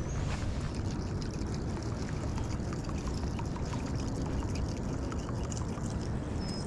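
Steady low rumble of wind on a chest-mounted camera's microphone, over faint water sounds and scattered light clicks from a baitcasting reel being worked during a retrieve.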